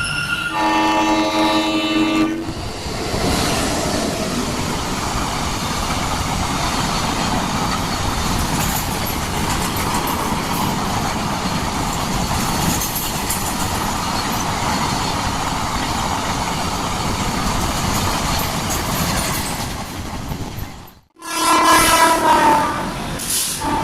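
Train horn blowing for about two seconds, then the steady rumble and clatter of a train running on the rails. The sound cuts out abruptly about 21 seconds in, then another horn blast sounds.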